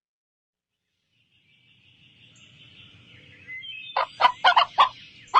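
Silence, then a faint farmyard background comes up, and about four seconds in chickens start clucking in a quick run of short, sharp calls.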